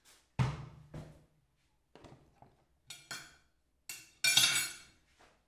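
Kitchen handling noises: a dull knock, then a run of clinks and knocks from dishes and utensils. The loudest is a bright, ringing clatter about four seconds in.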